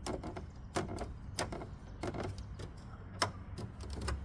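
Plastic mounting clips of an Audi rings emblem clicking as they are pressed into the car's front grille: a string of sharp, irregular clicks, the sharpest about three seconds in.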